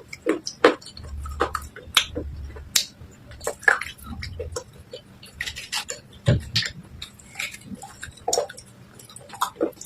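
Soaked clay and slate pieces being crunched in wet paste in a bowl with a spoon: irregular wet crunches and sharp cracks, with clicks of the spoon against the bowl.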